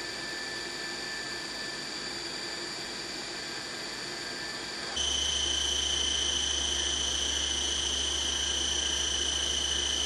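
A machine motor running with a steady high whine; about halfway through it steps abruptly to a louder whine at a different pitch, with a low hum underneath.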